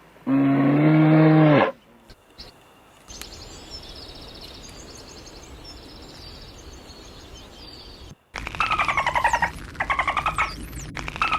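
Cattle mooing once, a call of about a second and a half, then faint high bird chirping over a steady hiss. After a sudden cut near the end comes a run of loud, harsh, rasping animal calls, each about a second long and falling slightly in pitch.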